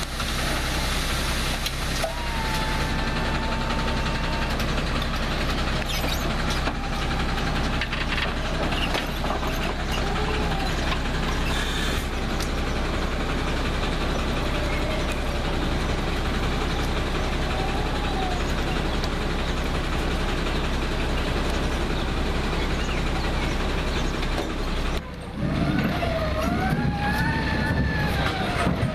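Delivery truck's engine running steadily at idle. Near the end a whine rises and then falls in pitch.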